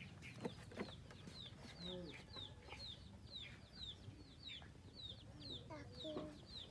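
Chickens: a faint, steady run of short high falling chirps, two or three a second, with a few low clucks mixed in.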